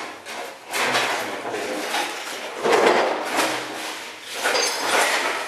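Sledgehammer striking and prying at the metal frame of a smashed CRT television, a run of clanks with scraping and crunching of metal and plastic debris in between.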